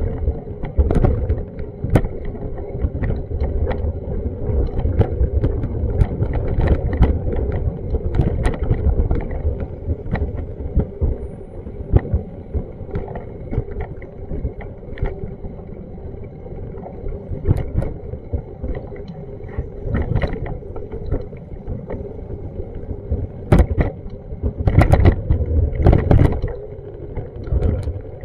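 Street ambience picked up on a handheld action camera: a continuous low rumble with a steady hum. Frequent short knocks and taps run through it, thickest near the end.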